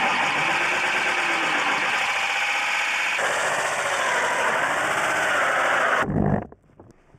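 Corded power drill running a hole saw through painted wooden wall cladding, the motor's pitch wavering as it cuts. The sound changes about three seconds in, stops abruptly about six seconds in, and a brief low thump follows.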